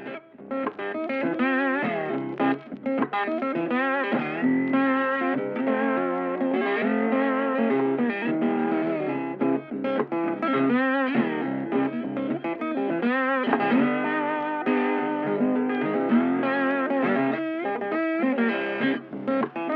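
Background music: a guitar playing a melody with wavering, bent notes.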